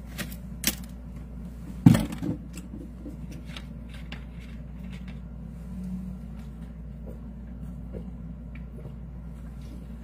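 Steady low background hum with a few scattered knocks and clicks, the loudest one a little before two seconds in.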